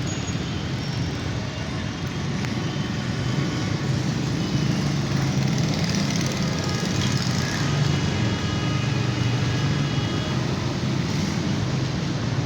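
Steady rumble of passing road traffic, with faint thin tones higher up.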